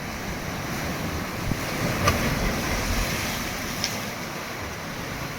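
Atlantic Ocean surf washing against rocks, a steady rushing noise, with wind buffeting the microphone in gusty low rumbles. Two brief sharp ticks stand out, about two and four seconds in.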